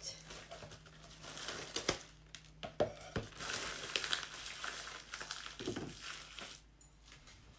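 Crinkling and rustling, as of something being handled, with a few sharp clicks, dying away near the end.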